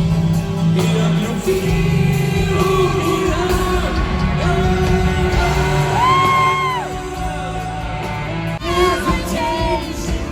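A live pop song in a large hall: a male vocalist sings a slow melody over a full band, holding a wavering note about midway.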